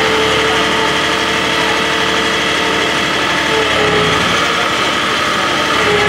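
Skid-steer loader's engine idling steadily.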